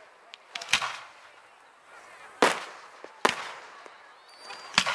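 Aerial fireworks shells bursting overhead: four sharp bangs at uneven intervals, each trailing off in an echo.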